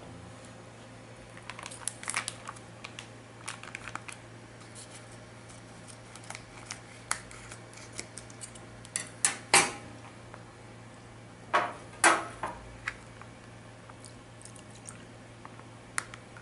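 Scattered light clinks and knocks of kitchen containers and utensils being handled, with louder knocks about nine seconds in and again about twelve seconds in.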